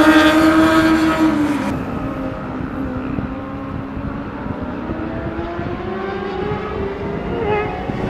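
Cars running on a race circuit: one car's engine passes close by, loudest at the start, its note dropping in pitch as it goes past about a second and a half in. Quieter engine noise from other cars follows, with an engine note rising near the end.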